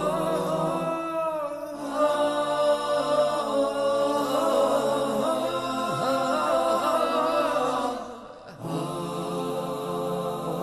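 Title theme of layered a cappella voices chanting a melody in the Islamic nasheed style. It breaks off briefly about eight seconds in and comes back.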